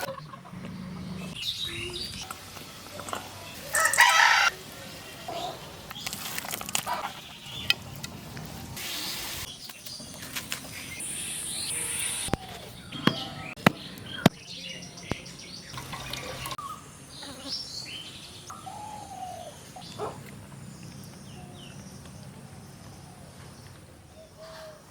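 Chickens calling, clucking and flapping their wings, with other birds calling. Several loud bursts of flapping or scuffling, and a few sharp knocks near the middle.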